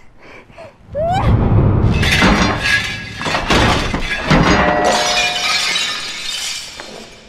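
A flowerpot crashing down and shattering, a loud smash about a second in with the breakage going on for several seconds before fading.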